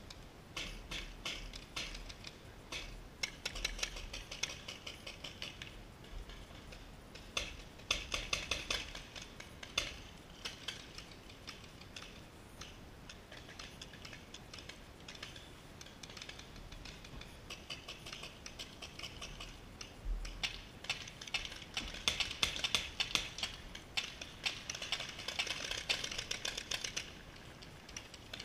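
Paintball markers firing in rapid bursts of sharp pops, in clusters that come and go, with the heaviest volleys about eight seconds in and again over the last several seconds.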